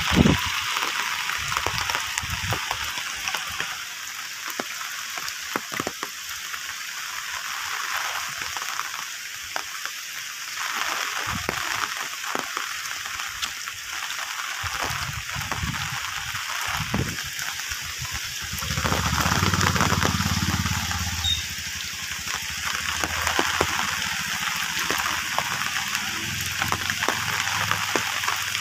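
Steady rain hissing down, with a low rumble swelling for a couple of seconds about two-thirds of the way through.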